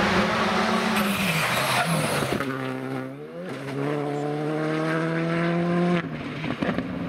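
Rally car engine at high revs with loud tyre and road noise, then a rally car accelerating away on gravel, its engine note rising sharply and then climbing steadily under hard throttle.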